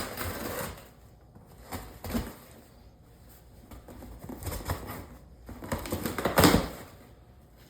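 Packaging being opened and handled: scratchy rustling and tearing in about four short bursts, the loudest near the end.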